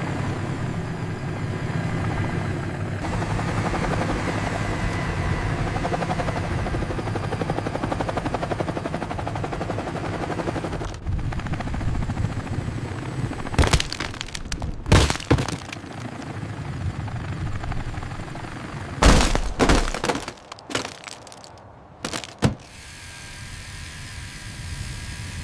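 Sound-effect helicopter rotor running steadily with a fast beating chop. About eleven seconds in it thins out, and several sharp bangs and cracks follow over the next ten seconds.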